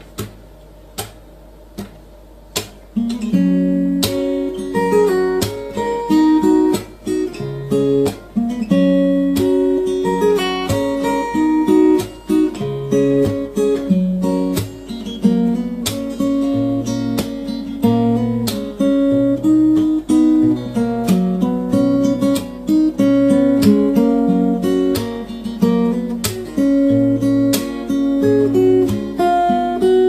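Background music on acoustic guitar, plucked and strummed chords. A few soft single notes open, and the full playing comes in about three seconds in.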